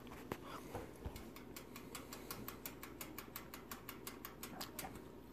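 Faint, steady ticking of a toaster's mechanical timer running down while it cooks, about four ticks a second.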